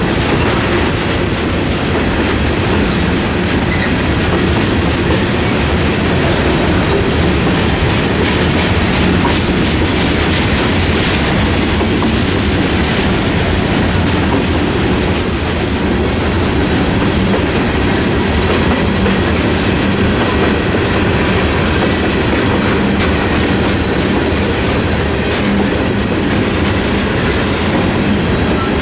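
A freight train's cars, covered hoppers then autoracks, rolling steadily past: a continuous rumble with wheels clattering over the rail joints.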